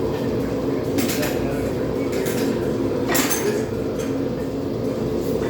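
Two hammer blows on hot railroad-spike steel on the anvil, about two seconds apart, each with a short metallic ring, over the steady hum of the propane forge.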